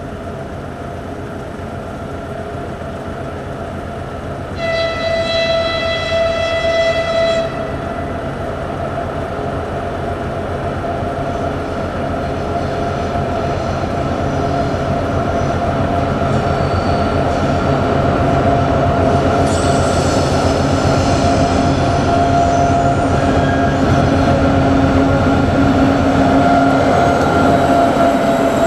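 Two diesel locomotives, a TEM7 and a ChME3, running with a steady engine drone that grows louder as they approach. A horn blast sounds about five seconds in and lasts about three seconds.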